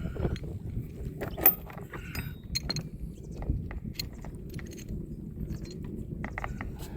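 Light metallic clicks and clinks, scattered irregularly, as a steel shackle and its threaded pin are handled on an anchor chain. A steady low rumble runs underneath.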